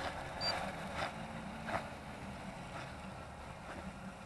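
UDI RC Venom remote-control speedboats running faintly far out on the water, their small electric motors under an even outdoor hiss.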